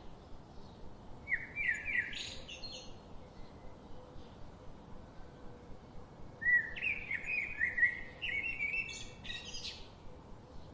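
A songbird singing two phrases, each a quick run of short downward-sliding chirps: a short one about a second in and a longer, louder one about six seconds in, over a faint steady hiss.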